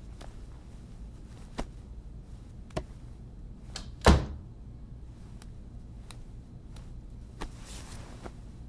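One heavy thump about four seconds in, amid scattered light knocks and clicks of things being handled in a small room. A short rustle of cloth comes near the end.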